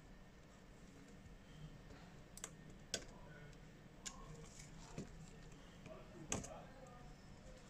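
Faint, irregular clicks and taps of small repair tools against phone parts during a charging-port replacement, about five separate clicks over several seconds, over a low steady hum.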